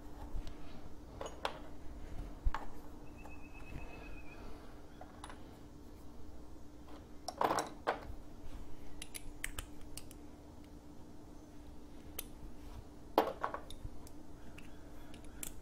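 Scattered light clicks and metallic clinks of small bolts and parts being handled and fitted around a lawn tractor engine's carburetor, with two louder knocks about seven and a half and thirteen seconds in. A steady low hum runs underneath.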